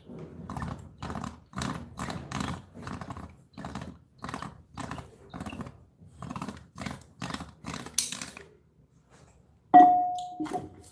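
Short scraping or tapping strokes repeat about twice a second. Near the end comes a sudden draw on a Vietnamese bamboo water pipe (điếu cày) for thuốc lào tobacco: a loud pull with a steady resonant tone that fades within about a second.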